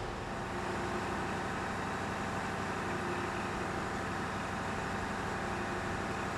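Heavy machinery engine running steadily at a constant pitch, a continuous drone with a few steady tones over a noisy hum.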